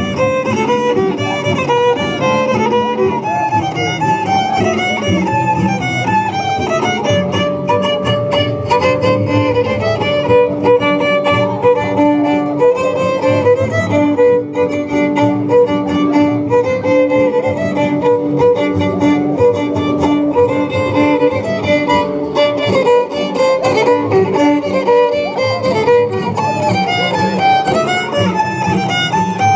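Violin-led music: fiddles playing a melody with string accompaniment beneath.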